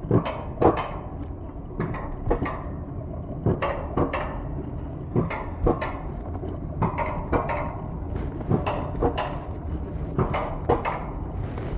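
Mountain coaster sled being hauled up the lift section of its rails: a steady low rumble with irregular metallic clacks and clanks, one or two a second.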